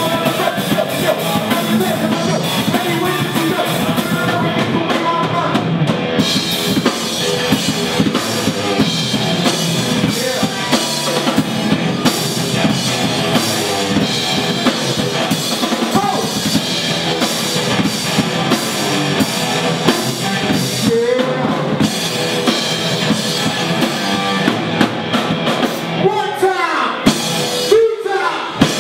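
Loud live band music: a drum kit playing fast, steady hits under a singing voice.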